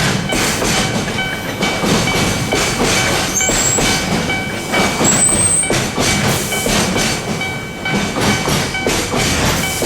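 Freight train of container wagons rolling through a level crossing, wheels clattering over the rail joints in a quick run of knocks, while the crossing's alarm bell rings steadily underneath. Two brief high squeals cut through, about three and a half and five seconds in.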